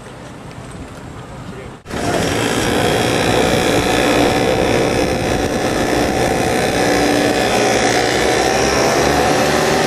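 Many two-stroke racing kart engines running together on the grid, a loud, dense buzz of several overlapping pitches. It starts abruptly about two seconds in, after a quieter stretch.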